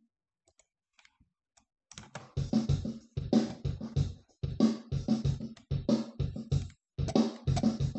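Near silence with a few faint clicks, then, about two seconds in, a programmed drum track starts playing back from the DAW in a steady rhythmic beat with strong low drum hits.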